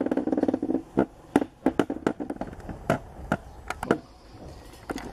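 Irregular sharp clicks and light knocks, about a dozen, with a short fast rattle in the first second.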